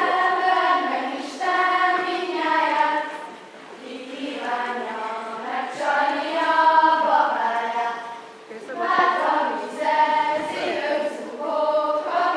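A group of girls singing a Hungarian folk song unaccompanied, a karikázó song for their circle dance, in phrases of about four seconds with short breaths between.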